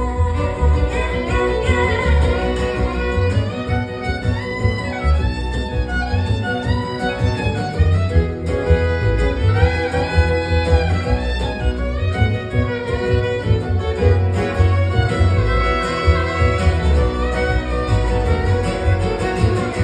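Live instrumental music: a fiddle playing a gliding melody over guitar and a steady bass line.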